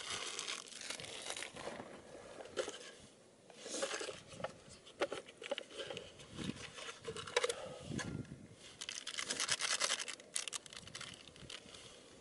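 Plastic shrink-wrap being torn and crinkled off an instant cup noodle, in irregular rustles and crackles.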